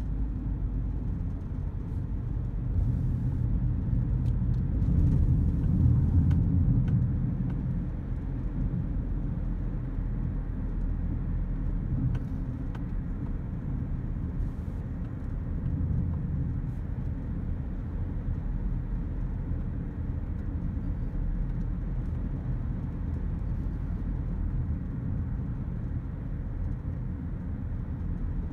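Road noise heard inside a moving car: a steady low rumble of tyres and engine. It swells for a few seconds early in the drive, then settles back to an even level.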